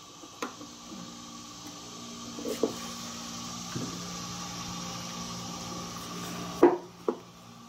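Small clicks and knocks of a 1999 Nissan Maxima EGR valve's stepper-motor housing and armature being handled and fitted together, over a faint steady hum. The loudest knock comes near the end, followed by a smaller second one.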